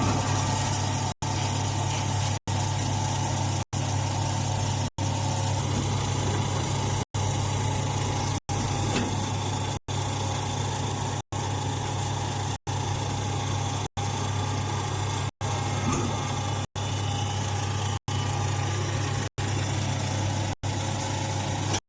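Hydraulic grass baler's motor and pump running at a steady hum, cut by very brief drop-outs about every second and a quarter.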